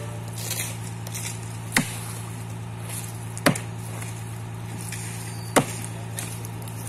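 Axe chopping into a fallen tree trunk: three sharp blows about two seconds apart, over a steady low hum.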